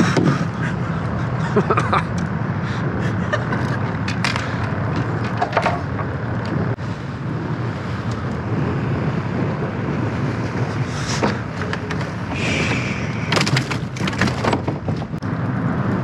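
A steady low rumble, with scattered knocks and clicks of a fish and tackle being handled on a small boat's deck, in clusters about 4 seconds in and again from about 11 to 15 seconds.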